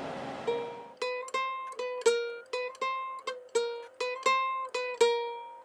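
Background music: a plucked string instrument playing a run of short, quickly fading notes, most of them on the same pitch.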